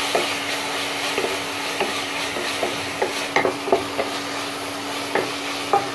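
Beef mince frying in oil in a non-stick pan, sizzling steadily while a wooden spatula stirs and scrapes it, with scattered light scrapes and taps against the pan. A faint steady hum runs underneath.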